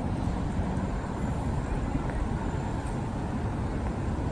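Steady low rumble of road traffic, an even wash of noise with no distinct events.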